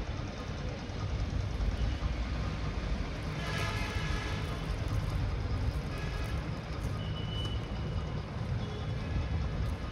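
Steady low engine rumble, with a short horn toot about three and a half seconds in.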